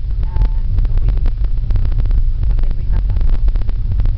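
Road noise inside a moving car: a loud, steady low rumble with frequent small knocks and rattles as the tyres run over the patched, uneven country road.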